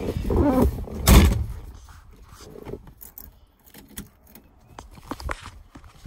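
A car door is pulled shut: a creak, then one loud thud about a second in. Faint clicks and jingles of a key ring follow as the key goes into the ignition.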